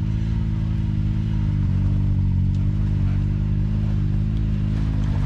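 Side-by-side UTV engine running steadily at low revs, close to idle, with only slight wavers in pitch.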